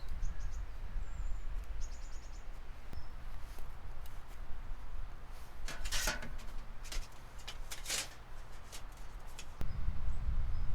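Outdoor ambience: a steady low rumble with a few short bird chirps, and two short handling noises about six and eight seconds in. The rumble gets louder near the end.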